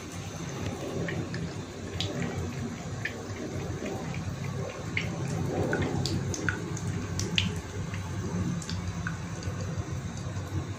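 Thin stream of water from a bathroom tap trickling into a ceramic basin, with scattered sharp drips and small splashes as a cat laps at the stream; the splashes come most often about halfway through.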